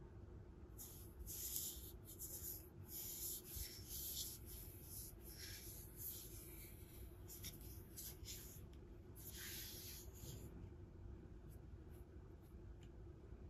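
Faint scratchy rubbing of gloved hands on a walnut-wood speaker case as it is handled and turned over, in irregular bursts that ease off near the end.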